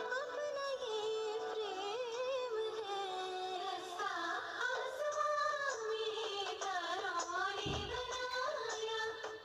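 Background Hindi film song: a woman singing a wavering, ornamented melody over instrumental accompaniment, with a brief low thump about eight seconds in.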